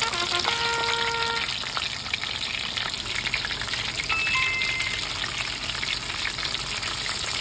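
Breaded layered pork cutlets deep-frying in oil, a dense steady crackle and sizzle. A few short tonal notes sound in the first second or so, and a brief two-note tone about four seconds in.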